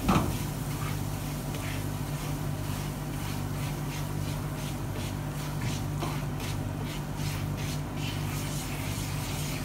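Flour frying in oil in a nonstick pan, faintly sizzling and bubbling while a silicone spatula stirs it in repeated strokes, over a steady low hum; a short knock at the start. The flour is being toasted on low heat to cook out its rawness.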